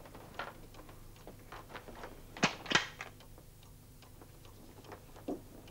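Metallic clicks and clacks of a rifle's bolt being worked as the rifle is checked after failing to fire. A few light clicks come first, then two louder clacks about two and a half seconds in and one more click near the end.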